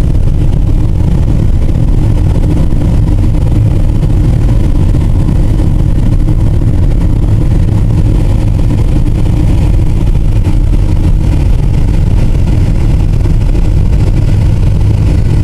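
A car driving along a country road: a loud, steady low rumble of road and wind noise.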